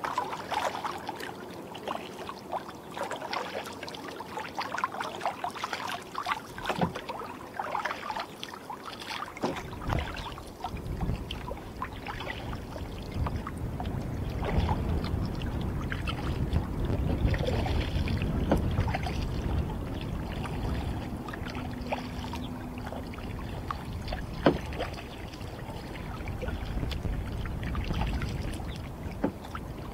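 Kayak paddle strokes dipping and splashing in calm bay water, with water running off the blades. From about ten seconds in, a steady low rumble sets in beneath the quieter strokes.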